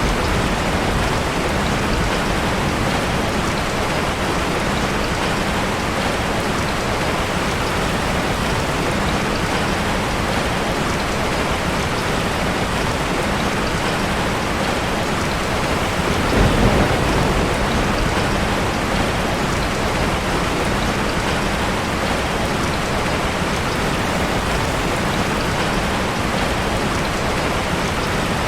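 Steady rain falling, an even hiss of drops, with one short low rumble of thunder a little past halfway.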